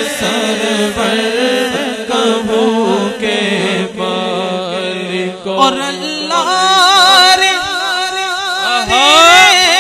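A man singing a naat, an Islamic devotional song, into a microphone in a long wordless melodic passage. A steady low drone sits under the voice in the first half. From about halfway on the voice climbs into a louder, wavering, ornamented line.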